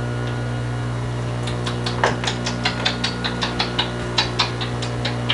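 A steady low electrical hum, with a quick run of light, sharp clicking taps, about four or five a second, starting about a second and a half in and stopping near the end.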